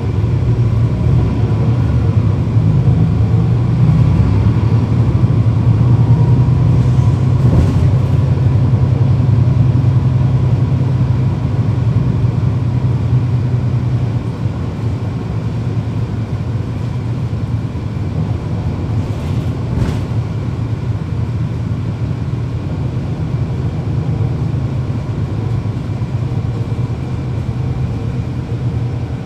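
Cummins ISL9 inline-six diesel engine of a 2012 NABI 40-foot transit bus, heard from inside the bus. It runs strongly through the first half and then drops to a quieter, steady run about halfway through.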